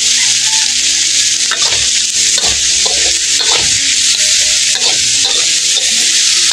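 Pork belly cubes sizzling in a hot wok while a metal spatula stirs and turns them, scraping against the pan about every half second from about a second and a half in.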